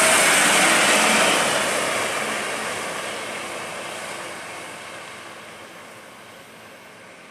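A Mitsubishi Fuso 220 PS cargo truck's diesel engine and tyres, loud as it passes close by, then fading steadily as it drives away.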